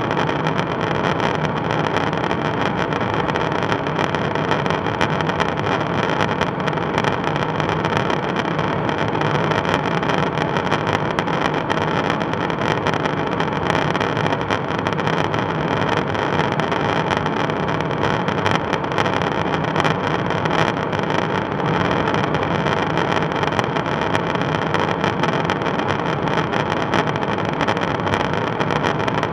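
Steady in-flight noise of a KC-135 Stratotanker heard from inside the boom operator's pod: engine drone and rushing airflow, with a few constant tones running through it.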